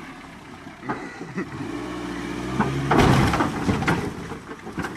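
Ford Escort's engine revving up under load, pulling against the chain, with a loud rough burst about three seconds in.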